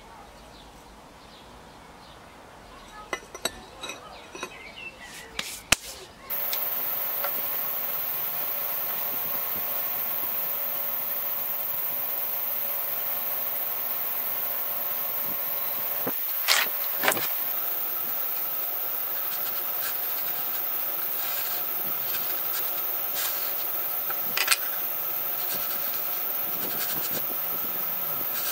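Hand work on a steel knife blank: rubbing and scraping with a few sharp clicks. About six seconds in, a steady hum with several fixed pitches starts suddenly and carries on under a couple of further clicks.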